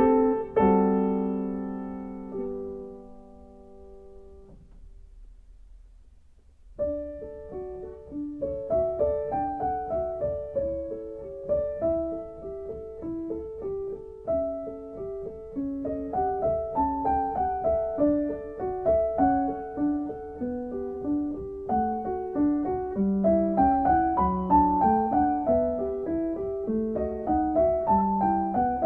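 Background piano music. A held chord fades away over the first few seconds, and after a short lull a new melody of quick single notes begins about seven seconds in.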